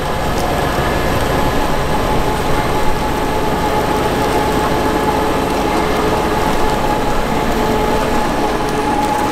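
Fendt 724 Vario tractor's diesel engine running under load while pulling a Grimme SE 150-60 potato harvester, whose digging and sieving gear runs along with it: a loud, steady mechanical rumble with a steady whine over it.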